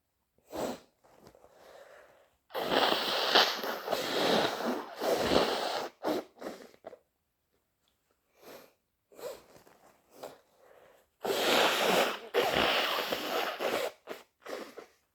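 A person blowing a snotty nose: two long, wet blows about nine seconds apart, each pushed in several surges, with short sniffs between and after.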